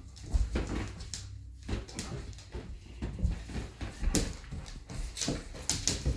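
Irregular taps, knocks and scuffles as a dog and a small child play with a balloon.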